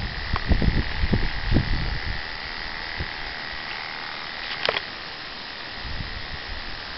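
Electric hair clippers buzzing with a steady high hum as they clip a mule foal's hair, with a few low thumps over the first two seconds and a brief sharp sound about four and a half seconds in.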